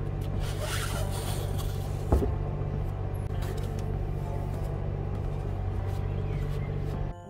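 A vehicle engine idling steadily. Over it, items rustle and there is one sharp knock about two seconds in as things are packed into the back of a van.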